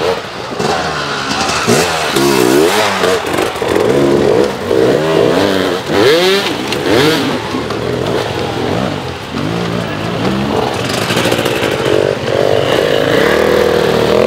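Off-road dirt bike engine revved hard in repeated bursts, its pitch swinging up and down again and again as the rider fights up a steep rocky climb. Near the end it settles into a steadier, higher engine note.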